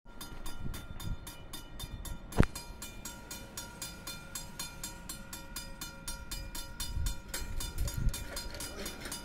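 Railway level-crossing warning bell ringing with rapid, evenly spaced dings as the crossing lights flash. A single sharp knock about two and a half seconds in is the loudest sound.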